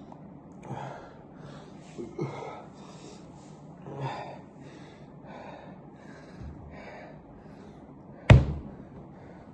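A person breathing hard and gasping in short, repeated breaths, with one sudden, loud, sharp sound about eight seconds in.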